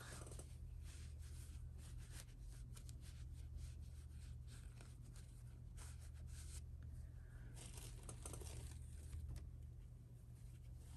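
Faint irregular rustling and scratching of stuffing being pushed into a crocheted toy's body, over a steady low hum.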